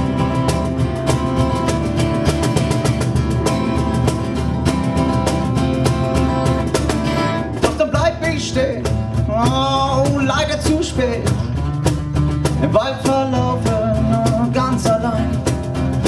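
Live acoustic band music: a steel-string acoustic guitar is strummed while bongos and a hand-held shaker keep a busy beat. Held steady tones fill the first half, and a voice comes in at about the halfway point, singing with sliding pitch.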